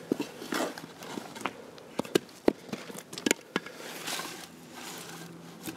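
Footsteps on gravel and dry leaves, with a few sharp knocks of heavy wooden blocks being handled and set down on the ground about two to three and a half seconds in.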